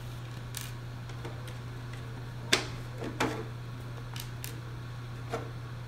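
A few short, scattered light clicks and taps over a steady low hum, the sharpest about two and a half seconds in.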